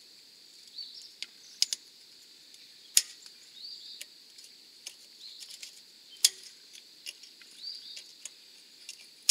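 Sharp, irregular metallic clicks of a small pry tool picking at the retaining clip in a truck's front wheel hub, the loudest a few seconds apart. Behind them a short rising bird chirp repeats about every second and a half over a steady high hiss.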